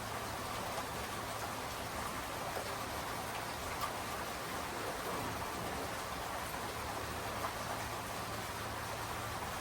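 Steady rain falling, an even patter with scattered individual drop ticks.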